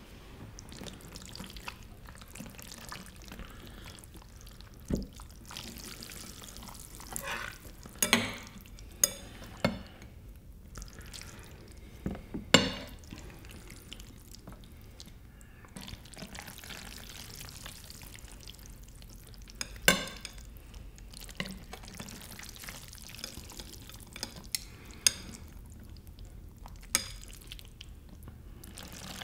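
Metal tongs and chopsticks clinking against ceramic plates and bowls while saucy bibim noodles and steamed dumplings are served, about eight sharp clinks scattered among soft wet sounds of noodles being lifted and dropped.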